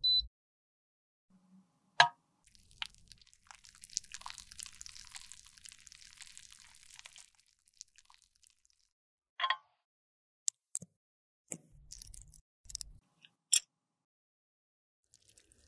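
Close-up handling sounds: a few seconds of soft crackling, then a run of sharp plastic clicks and taps as a heart-shaped plastic makeup compact is opened and handled.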